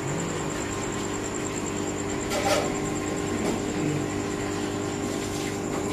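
Steady electric hum and hiss of aquarium equipment running, with a constant high whine above it.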